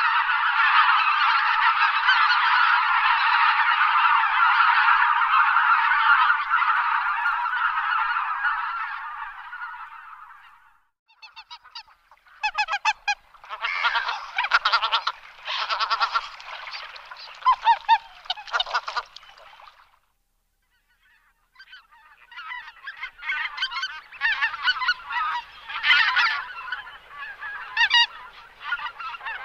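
Greater white-fronted geese calling. A flock's honking calls overlap in a dense, continuous chorus that fades out about ten seconds in. After a short silence come separate bursts of honks, broken again by a brief gap about two-thirds of the way through.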